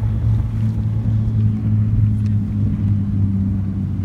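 An engine running at a steady speed, a constant low drone, with wind noise on the microphone.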